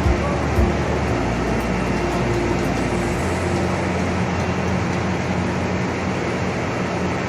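Mill machinery running: a loud, steady din with a constant low hum under it.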